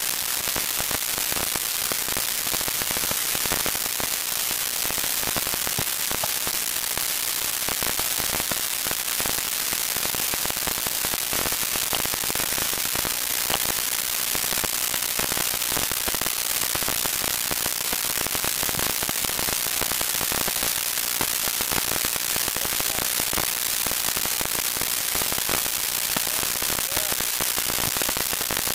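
Steady hiss with faint crackling, unchanging in level throughout.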